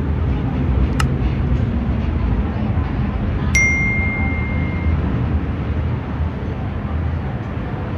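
Hong Kong MTR train running, a steady low rumble in the carriage. A click comes about a second in, and a single bright ding about three and a half seconds in rings on as one clear tone for about a second and a half.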